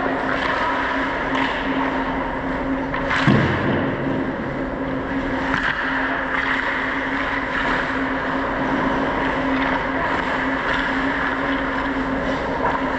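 Ice hockey play: skates scraping on ice over a constant rushing noise, with scattered clacks of sticks and puck and a heavier thump about three seconds in. A steady low hum runs underneath.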